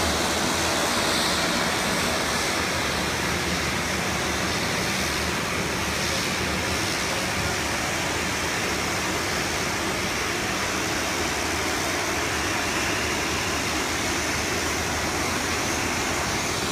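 Twin turboprop engines of a Dornier 228 running as the aircraft taxis, a steady loud rushing noise over a low hum.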